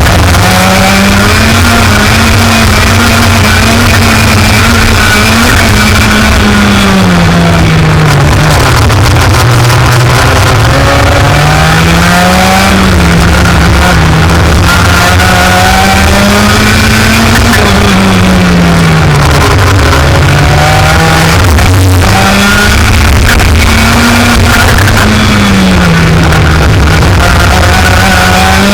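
Racing engine, most likely a kart's, revving up and dropping back again and again as it is driven around the track, mixed with loud electronic music.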